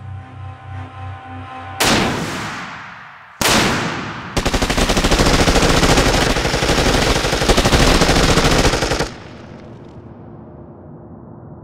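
Gunfire: two heavy single shots about a second and a half apart, each with a long fading echo, then a sustained burst of rapid automatic fire lasting about five seconds that cuts off suddenly.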